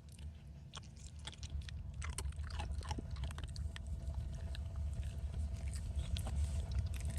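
Dog chewing and gnawing on a hard chew: irregular small crunching clicks over a low steady hum.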